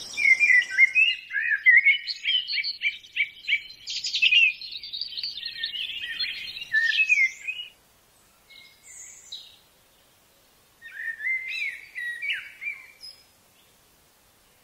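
A bird singing a long, varied phrase of quick chirps and trills for about eight seconds. Then come a few fainter calls and a second, shorter phrase, after which it falls quiet.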